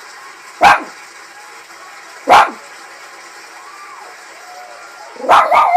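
A dog barking in short, sharp single barks, one about a second in and another about two and a half seconds in, then two or three quick barks near the end: alarm barking at other dogs outside.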